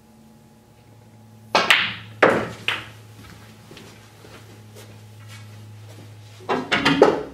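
Snooker balls: a cue striking the cue ball about a second and a half in, followed by two sharper ball knocks within the next second. Near the end comes a quick run of ball-on-ball clicks as the balls are handled. A faint steady hum runs underneath.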